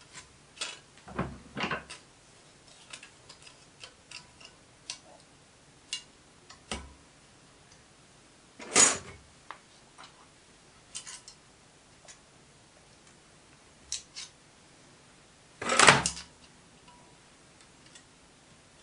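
Scattered small clicks and taps as hand tools and a thin drinks-can aluminium template are handled at a steel bench vise, with two louder brief noises about nine and sixteen seconds in.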